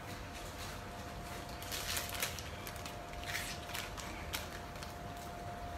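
Chicken pieces in a steel pot over a gas burner, crackling and sizzling faintly in irregular spurts over a steady hum.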